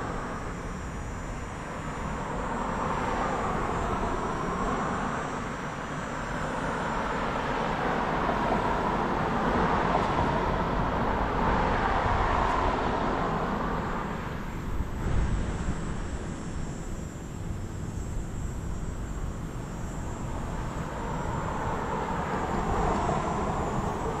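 Traffic noise heard from a moving bicycle: vehicles pass in slow waves that rise and fade, over a steady rush, with a brief thump about fifteen seconds in.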